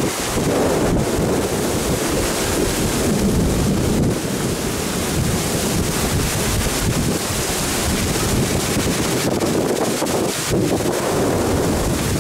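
Heavy rain pouring down in strong, gusting wind. The dense hiss of the rain swells and eases with the gusts, and the wind buffets the microphone.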